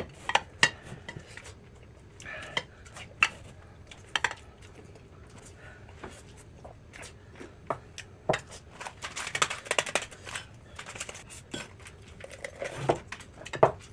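Tableware clinking during a meal: scattered, irregular clicks of dishes and cutlery, busiest about two-thirds of the way through.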